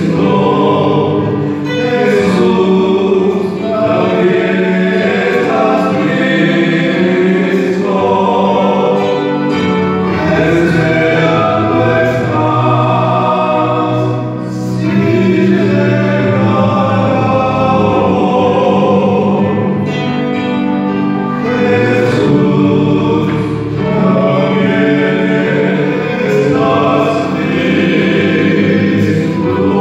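Male vocal quartet singing a sacred song in harmony through handheld microphones, in long sustained phrases with brief breaks between them.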